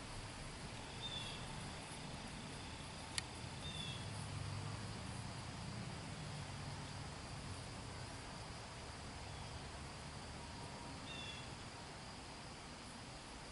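Faint outdoor field ambience: a steady insect drone with a few short, faint bird chirps and a single sharp click about three seconds in.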